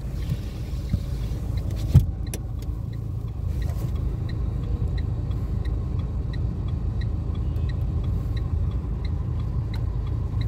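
Inside a car cabin: the turn-signal indicator ticks about twice a second over a steady low engine and road hum. About two seconds in, a thump comes as the side window shuts, and the outside hiss drops away.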